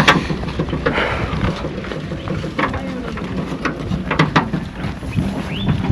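Steady low rumble of wind on the microphone, with scattered short knocks and clicks.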